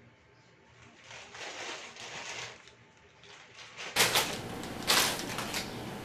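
Plastic bag rustling as gloved hands handle it. A louder hiss then sets in with two sharp knocks about a second apart.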